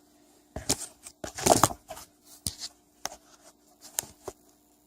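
A shop rag rustling and rubbing in a handful of short scrapes, the longest and loudest about a second and a half in, as an engine part is wiped clean.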